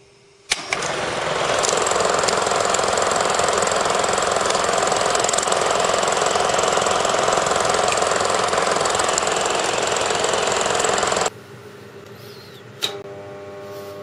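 Film projector starting with a click and running with a loud, steady mechanical rattle of the film transport. The rattle cuts off abruptly about eleven seconds in, leaving a much quieter sound with a few steady tones.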